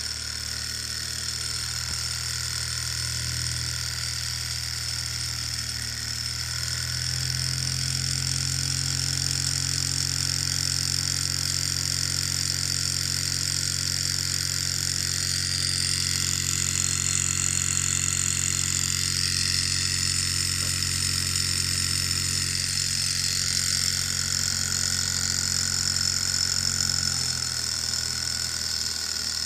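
Small hot-air Stirling engine model running at speed, its flywheel belt-driving a little generator that lights an LED: a steady mechanical hum with a higher whir over it. Near the end the hum changes as a finger touches the generator.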